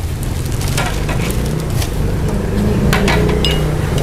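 Several light knocks and clinks of cups, lids and a pot being handled while a sweet corn pudding is portioned out, with one short ringing clink near the end, over a low steady hum.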